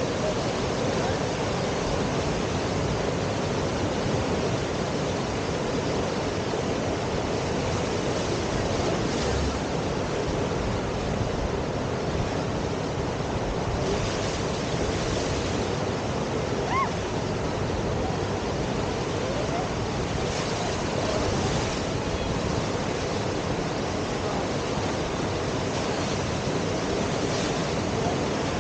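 Whitewater of the Deschutes River rushing steadily over the standing surf wave, an even continuous wash of water noise. A brief faint chirp sounds about halfway through.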